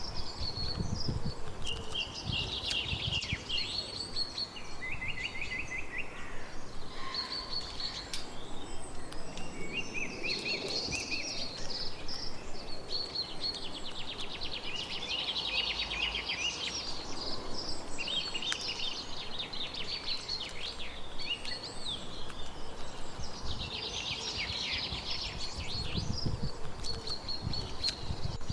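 Several songbirds singing at once, with rapid trills and chirps overlapping, over a low background rumble that swells near the start and again near the end.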